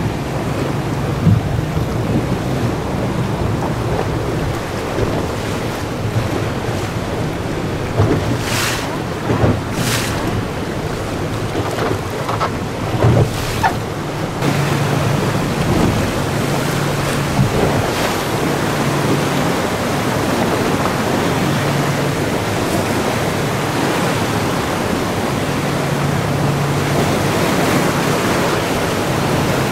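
A small boat's outboard motor running steadily under heavy wind on the microphone, with waves and splashing water all around. A few sharp slaps or splashes come in the middle stretch.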